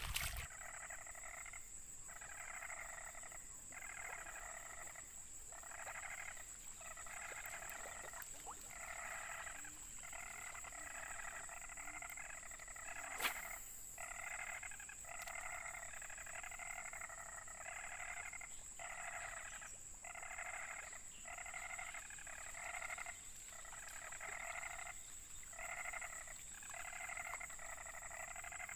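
Frogs calling, a regular run of short calls about one a second, over a constant high-pitched whine, with a single sharp click about thirteen seconds in.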